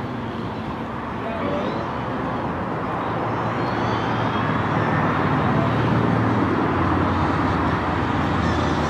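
Classic Mini's four-cylinder A-series engine revving and easing off as the car is driven hard through a cone slalom, getting louder as it comes closer.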